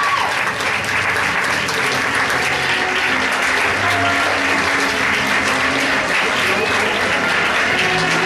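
A large audience applauding: dense, steady clapping that holds at an even level throughout.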